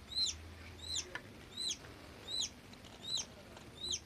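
Freshly hatched chicken chick peeping: short, high, downward-sliding peeps repeated evenly, about six of them, roughly one every two-thirds of a second.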